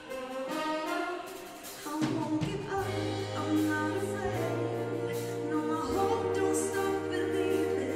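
Live big band with a female lead singer and backing vocal group performing a song: held sung notes over sustained bass and cymbals, growing fuller about two seconds in.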